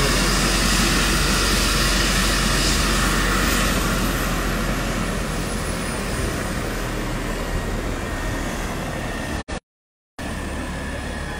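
Helicopter's turbine and rotor running on the ground just after landing, slowly winding down: a high whine falls in pitch and the overall noise gradually eases. The sound cuts out for a moment near the end.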